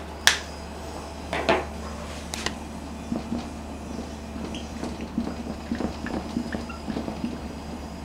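A few sharp clicks as a whiteboard marker is picked up and readied, then the marker's felt tip making short, irregular strokes and taps on the whiteboard as she writes.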